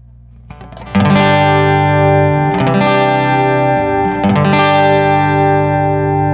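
Guitar played through a Cube Baby AC multi-effects pedal: three chords strummed about a second in, near the middle and again shortly after, each left to ring out.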